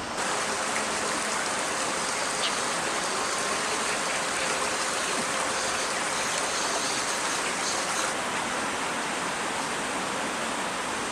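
Steady, dense rush of water, as of heavy rain or fast-flowing floodwater.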